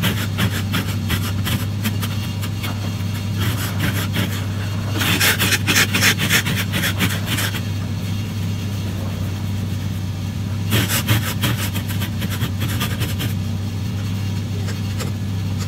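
Ice scraper scraping frost off a car's glass in bursts of quick rasping strokes, the longest about five seconds in, over the steady low hum of the car's engine idling.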